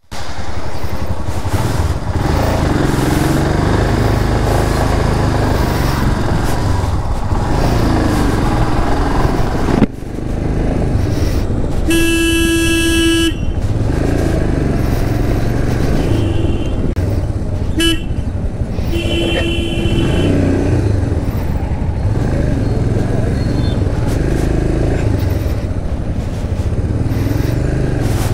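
Royal Enfield Himalayan motorcycle running through traffic, its single-cylinder engine and road noise rumbling steadily. A vehicle horn blares for over a second near the middle, then a brief toot and another short honk follow.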